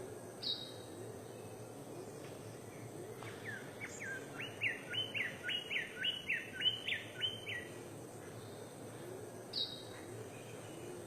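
A bird calling a fast series of about a dozen rising whistled notes, roughly three a second, over about four seconds. A single short high chirp comes near the start and another near the end, over steady background hiss.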